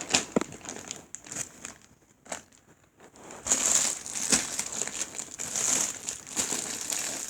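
Rustling and crinkling as foam squishy toys are picked up and stacked by hand, with small taps and clicks and a lull about two to three seconds in.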